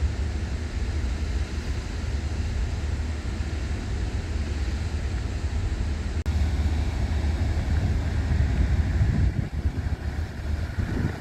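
Steady low rumble of machinery, with wind buffeting the microphone in the second half; the sound breaks briefly at a cut about six seconds in.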